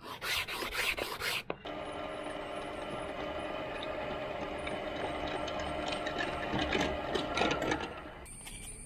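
A few quick hand rubbing strokes on a mould block, then a bench drill press running with a steady motor hum as a hole is drilled into a sinker mould.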